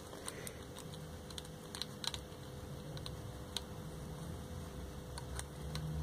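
Faint, irregular small clicks and taps of a Yamaha 2 hp outboard's kill-switch parts being fitted together by hand: the plastic button housing, spring, washer and small nut on a stainless screw, with a couple of sharper clicks about two and three and a half seconds in.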